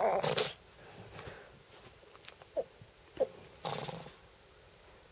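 Pekingese dog giving a wavering, monkey-like whining warble that breaks off about half a second in, the excited noise he makes when begging for a pen. Then two short high squeaks, and a brief noisy huff a little later.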